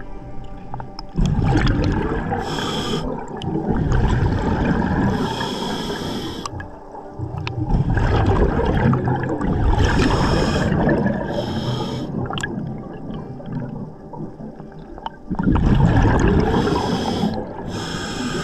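Scuba diver breathing through a regulator underwater: about four long rumbling gushes of exhaled bubbles, each joined by a short high hiss of the regulator.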